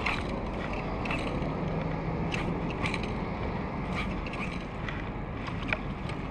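Fly-fishing tackle handled during a cast and line retrieve: irregular light clicks and ticks from the rod, reel and line, over a steady background rush.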